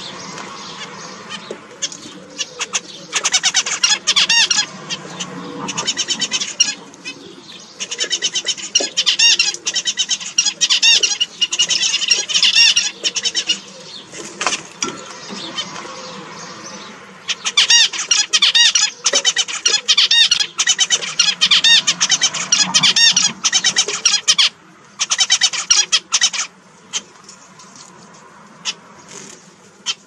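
Zebra finches calling: several long bursts of rapid, nasal beeping calls, thinning out to scattered single calls near the end.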